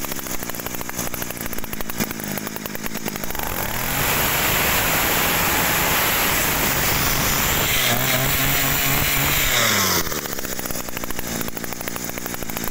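Kioritz Green two-stroke brush cutter engine, just pull-started, idling, then revved up about four seconds in and held high for several seconds before dropping back to idle a couple of seconds before the end.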